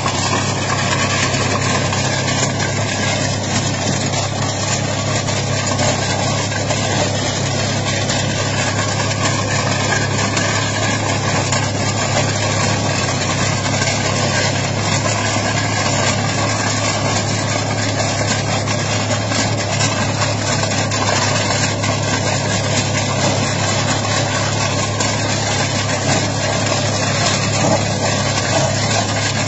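Tractor engine and a PTO-driven stone-picking machine running steadily: a continuous mechanical drone, unchanging throughout.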